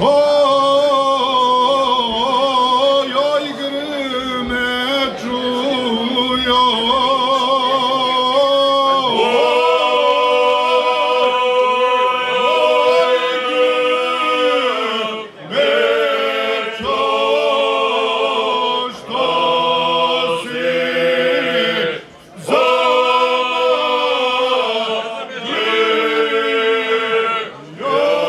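A group of men singing together unaccompanied, a traditional Bosnian Krajina folk song in close harmony. The voices hold long notes with a wavering shake, then steadier chords, pausing briefly for breath three times between phrases.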